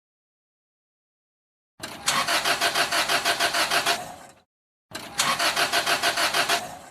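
Car engine cranking on the starter without firing: two tries of about two seconds each, each a rhythmic chug of about five beats a second that fades off. The engine does not catch, a cranks-but-won't-start fault.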